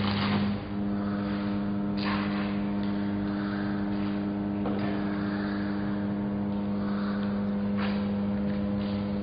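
Welding machine humming steadily, with a few short sharp taps of metal.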